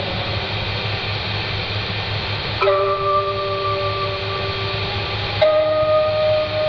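Dark ambient music: a dense noisy drone over a fluttering low hum, with held whistle-like tones that switch suddenly to new pitches about two and a half seconds in and again near five and a half seconds.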